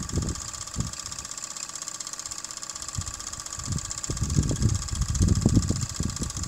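Steady hiss from small live-steam models, a traction engine and a steam roller, standing in steam. Wind buffets the microphone in irregular low gusts that get stronger in the second half.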